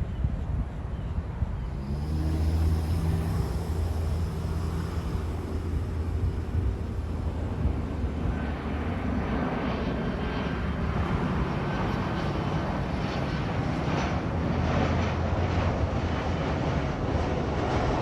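Jet airliner engines on approach, growing louder as the plane comes nearer from about eight seconds in, with a faint high whine over the rumble.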